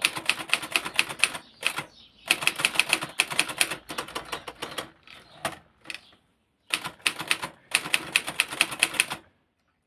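A 1959 Imperial Good Companion 5 manual portable typewriter being typed on in fast runs of key strikes, each keystroke a sharp clack, with short pauses between the runs.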